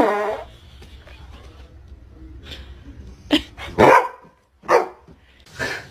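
Dog barking: a few short barks in the second half, the loudest about four seconds in, after a brief falling cry right at the start.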